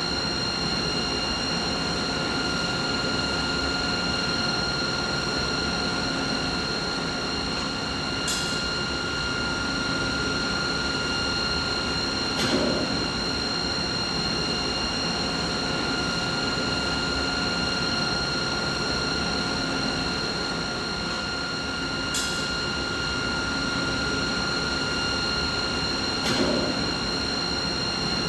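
Steady mid-pitched machine noise with a constant high whine made of several steady tones. A sharp click comes four times, two of them with a short low thud.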